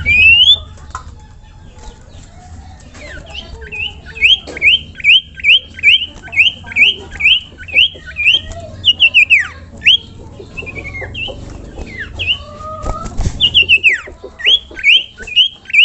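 Sirtu songbird singing a fast run of short, clear whistled notes, each sweeping up and then dropping sharply, repeated two or three times a second in bursts with brief pauses between them.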